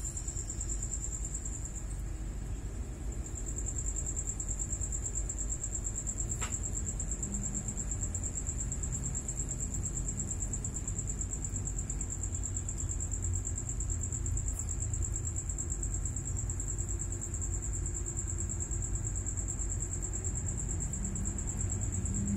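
A steady, high-pitched insect trill, like a cricket's, runs on without pause over a low, continuous rumble. A short falling whistle sounds once, about six seconds in.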